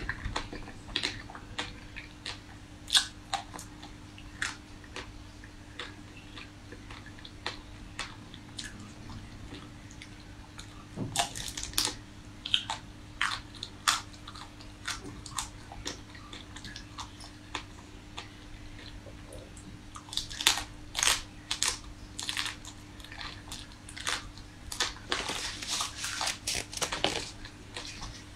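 Close-miked chewing and biting of hard-frozen chocolate-coated ice cream bars: irregular sharp crunches and cracks, coming thicker and faster in the last third.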